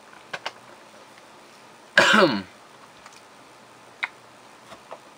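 A man clears his throat with one short cough about two seconds in, the loudest sound here. A few faint computer keyboard key clicks come before and after it.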